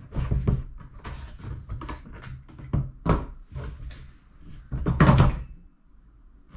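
Hard plastic engine cover of a Sea-Doo personal watercraft being pressed and worked down onto the hull: a series of irregular clunks and knocks, the loudest about five seconds in.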